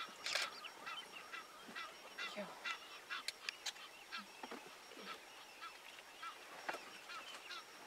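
African wild dogs twittering while feeding on a carcass: a constant run of short, high, bird-like chirps, several a second, with a few sharp clicks among them.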